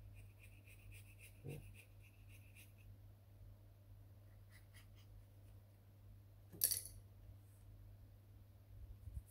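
Printer parts being handled: a soft knock about one and a half seconds in and a sharp clink a little past the middle, with a few small clicks near the end, over a low steady hum.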